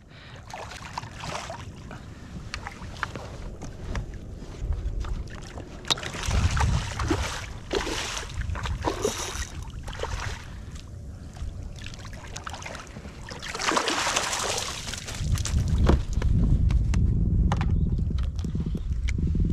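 Water and handling noise aboard a fishing kayak: water sloshing against the hull, wind rumbling on the microphone, and scattered knocks and clicks, with a louder rush of noise about fourteen seconds in.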